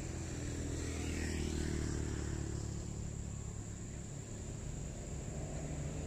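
A motor vehicle's engine running, growing louder about a second in and easing off after the middle.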